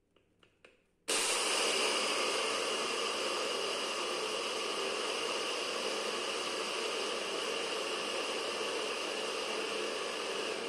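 Personal bullet-style blender starting suddenly about a second in, after a few faint clicks as the cup is pressed down, then running steadily as it grinds a full cup of roasted peanuts into powder.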